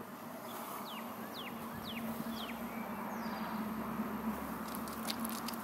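A bird's short chirps, four quick ones in a row each falling in pitch, over a steady low hum and hiss.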